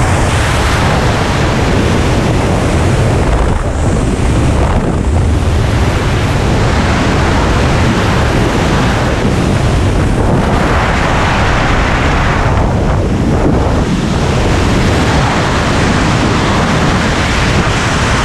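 Loud rush of wind over the camera microphone in skydiving freefall, a steady buffeting roar that swells and eases every few seconds.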